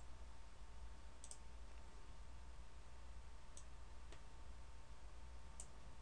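Several faint computer mouse clicks, widely spaced, over a low steady hum.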